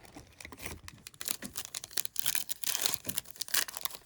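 Foil trading-card pack wrapper crinkling and tearing as it is handled: a dense crackle of many small rustles that grows louder about a second in.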